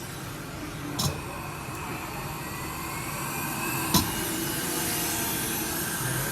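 Hot air rework station blowing a steady hiss of air over a phone logic board, with two sharp clicks about a second in and near four seconds, the second one the loudest.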